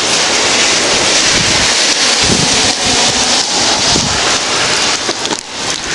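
Steady rain, with wind buffeting the microphone.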